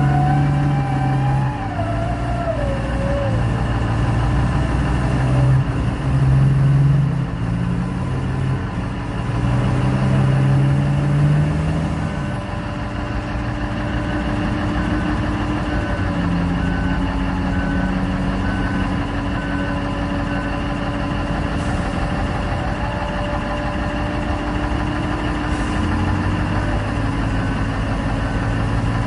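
Large diesel engine of a mining haul truck running, its pitch stepping up and down as it revs and settles back toward idle. A high whine falls in pitch over the first few seconds.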